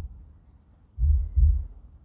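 Recorded heartbeat played through loudspeakers set in a granite memorial statue's pedestal: a deep double thump, lub-dub, about a second in, repeating at a slow resting pace.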